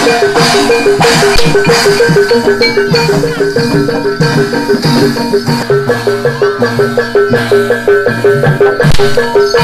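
Gamelan ensemble playing barongan accompaniment: a fast, even run of repeated metallophone notes over hand-drum strokes.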